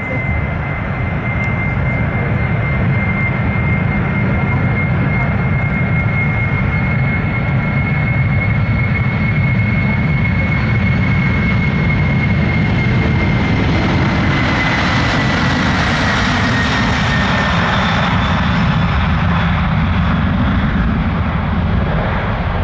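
Boeing 747-400's four General Electric CF6-80C2 turbofans at takeoff thrust during the takeoff roll: a deep steady rumble under a high fan whine. About two-thirds of the way in, the whine drops in pitch and a rush of hiss swells as the jet passes.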